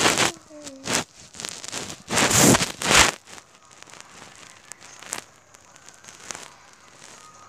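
Rustling, scraping and a few knocks from a phone being handled close to its microphone. The loudest is a scraping rustle about two seconds in, followed by fainter ticks.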